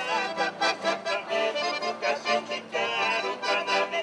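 Piano accordion and acoustic guitar playing a tune together, with the accordion's held chords in front and the guitar plucking a steady rhythm underneath.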